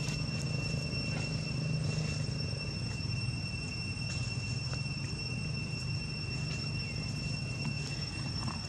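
Steady outdoor ambience: a constant low rumble under a continuous high-pitched insect drone, with a few faint ticks.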